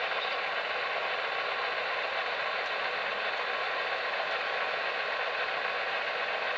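Three HO-scale Broadway Limited Paragon2 AC6000CW model diesel locomotives running coupled along the track: a steady, even running noise with no breaks or knocks.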